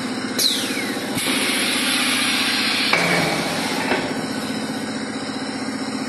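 Automatic air fryer paper liner forming machine running: a steady mechanical drone with a rapid, even clatter from its press. A falling whoosh comes about half a second in, followed by a hiss, with a sharp knock about three seconds in.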